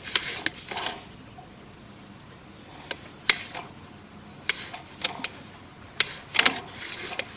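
Scattered clicks and knocks from a sewer inspection camera's push cable being worked back and forth in a drain line, trying to push through a blockage of debris.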